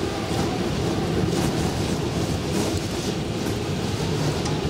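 Storm wind blowing hard and steadily, a low rumbling rush buffeting the microphone.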